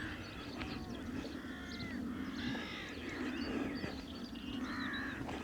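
A flock of crows cawing over and over, many calls overlapping, as the birds squabble among themselves.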